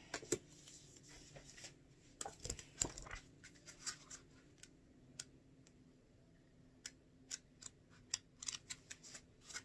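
Pages of a paperback tarot guidebook being leafed through by hand: irregular quick papery flicks and rustles, busiest in the last few seconds.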